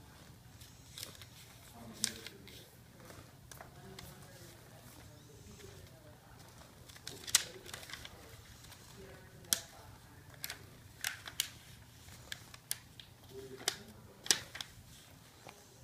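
A sheet of paper being folded and creased by hand on a wooden surface: scattered sharp paper crackles and taps as fingers press the folds flat, the loudest about halfway through and near the end.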